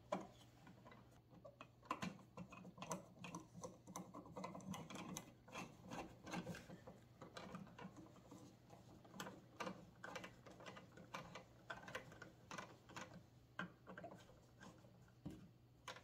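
Faint, irregular clicks and scrapes of a screwdriver turning the mounting screws of a wall dimmer and switch in their electrical box.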